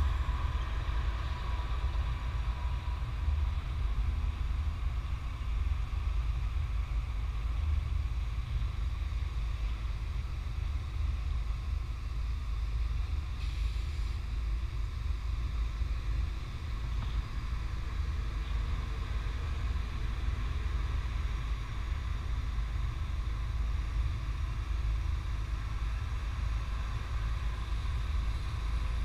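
Steady low rumble of running machinery and engines, with a faint steady hum higher up and wind noise on the microphone.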